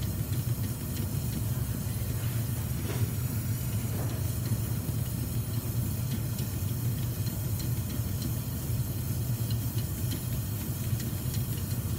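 Oxy-acetylene torch flame burning steadily on a crucible of melting silver: a low, even rush with a few faint ticks.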